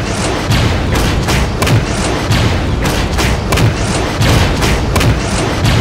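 A rapid, irregular series of heavy bangs and thuds, two or three a second.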